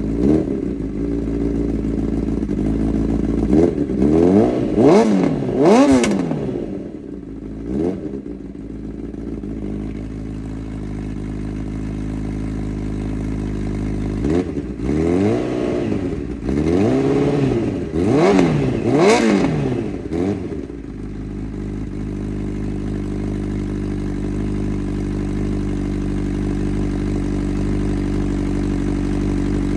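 Honda CB1000R inline-four engine through a Black Widow aftermarket exhaust, idling and blipped: a quick run of rising-and-falling revs a few seconds in, a single blip after that, another run of revs in the middle, then a steady idle.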